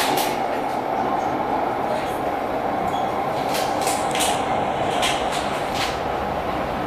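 Aeromóvel pneumatic people-mover car running along its elevated guideway, heard inside the cabin: a steady running noise with a constant mid-pitched tone, broken by a few short clicks.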